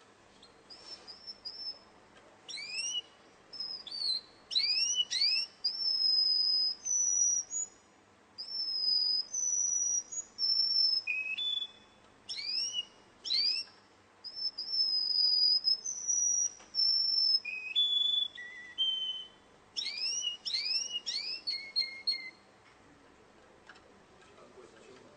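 Caged Russian canary singing: phrases of rising whistled sweeps and held whistled notes, with short pauses between them. The song stops a few seconds before the end.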